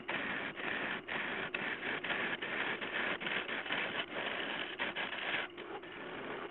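Turning gouge cutting a spinning dead-ash bowl blank on a wood lathe: a continuous rough shearing hiss of the tool in the wood, broken by many brief dropouts.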